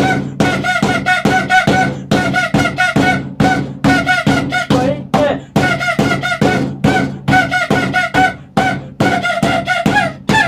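Electronic music: short pitched notes chopped into a quick, even rhythm over a steady low drone, in phrases broken by brief gaps.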